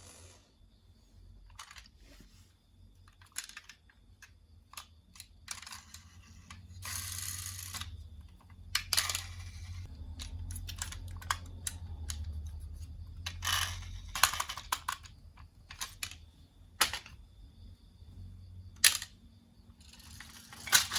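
Marbles rolling and clacking down a toy marble run: scattered sharp clicks and knocks, with a few short stretches of rolling rumble, over a faint steady low hum.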